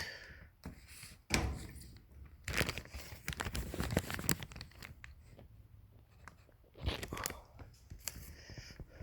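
Irregular rustling, crinkling and scraping handling noises with a few sharp clicks and knocks, as a toothed rubber garage door belt is handled and held against another one.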